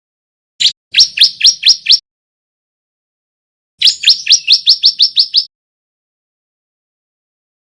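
Male bar-winged prinia (ciblek) singing in two fast bursts of sharp, rising chirps, about five a second. The first burst is short, the second longer at around ten notes, and a new burst begins right at the end.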